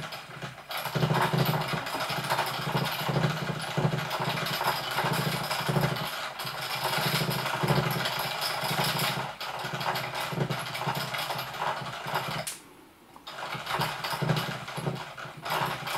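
Small electric motor of a battery-powered spinning cat toy whirring, with a low pulse about twice a second, stopping for a moment about three-quarters of the way through before running again.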